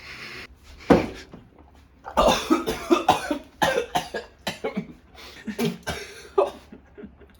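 A person coughing repeatedly, with one sharp cough about a second in and a run of harsh coughs from about two seconds on. This is a reaction to swallowing a foul blended smoothie of mustard, sauce, egg and lunch meat.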